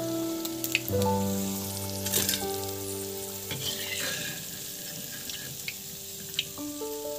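Potato fritters deep-frying in hot oil in a wok, the oil sizzling steadily, with a few sharp clinks of a steel slotted skimmer against the pan as the fritters are lifted. Soft background music with held notes plays under it.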